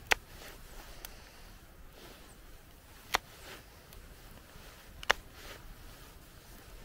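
Knife chopping a carrot on a wooden block: three sharp chops about two seconds apart as the blade goes through and knocks into the wood, with a fainter one about a second in.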